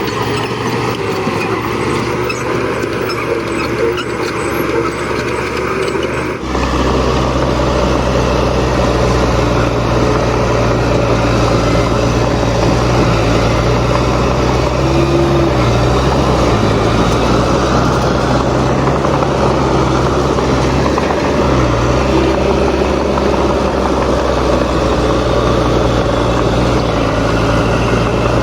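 Heavy construction machinery's diesel engine running steadily under load, with a sudden step up in loudness and depth about six seconds in.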